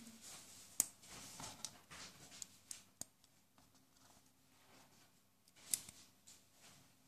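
Small plastic construction bricks being handled and pressed together: light clicks and rubbing, with two sharper snaps, about a second in and again near the end.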